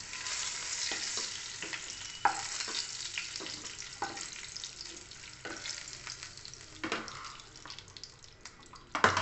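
Hot oil sizzling in a non-stick kadhai as fried capsicum pieces are scooped out with a wooden spatula. The spatula scrapes and knocks against the pan several times, the sizzle fades as the pan empties, and a louder knock comes near the end.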